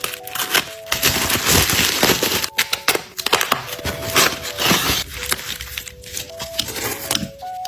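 Packaging being handled and unwrapped: rustling and crinkling with many quick clicks and taps, loudest in the first half. Soft background music with a simple melody plays underneath.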